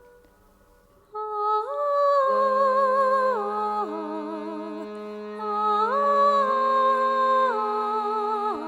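Background music: slow, sustained melodic tones with a wavering vibrato, stepping between pitches over a steady low drone, coming in about a second in after near silence.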